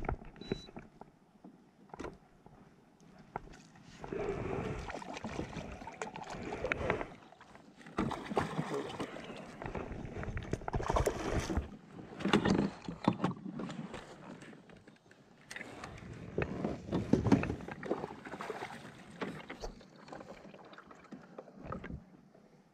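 Water sloshing against a fishing kayak, with irregular knocks and rustles as gear such as the landing net is handled.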